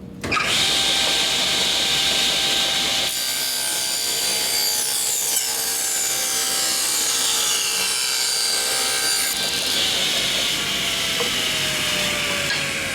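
Table saw starting up just after the start, then its blade ripping a thin wooden board to width for about six seconds. Near the end the blade spins down with a slowly falling pitch.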